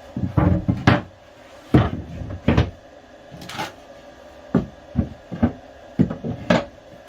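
Cupboard panels being fitted back into place: a series of irregular knocks and clunks, some in quick pairs.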